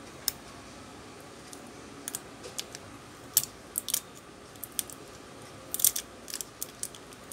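Irregular sharp clicks and crackles as fingers pull at the adhesive pull tab under a Realme C12 smartphone's battery to free it. The clicks come in small clusters, a few seconds apart.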